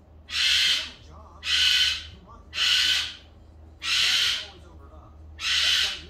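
Goffin's cockatoo screaming: five loud screeches, each about half a second long and roughly a second apart.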